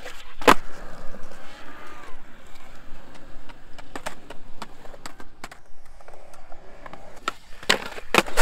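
Skateboards on a concrete plaza: tails popping and boards and wheels slapping down on concrete, a series of sharp knocks with the loudest about half a second in and two more close together near the end.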